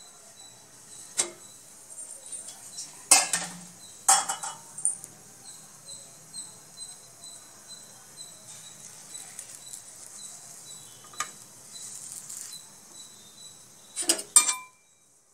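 Aluminium pan lid clanking against metal a few times as it is lifted off and set down, two sharp clanks about three and four seconds in being the loudest. A couple of quick metal clinks near the end.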